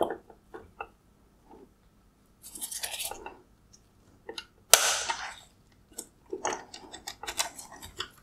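Sharp plastic clicks and scrapes as a pick pries a plastic retainer cap off the spring-loaded swivel pivot of an LED headlight projector. Two longer scraping sounds, a louder one about five seconds in, then a quick run of clicks near the end.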